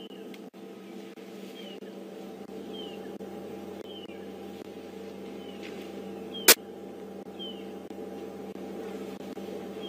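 A bird repeats a short, falling call about once a second over a steady low hum, with a single sharp click about two-thirds of the way through.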